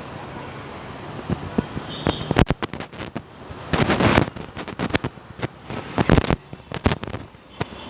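Irregular sharp cracks and crackles, thickening into a dense burst of crackling about four seconds in and again around six seconds.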